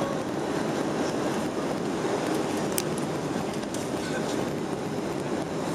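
Steady cabin noise heard from inside a Boeing 737-800 on approach with its flaps extended: the rush of air past the fuselage and wing together with the hum of its CFM56 engines. A single sharp click comes about three seconds in.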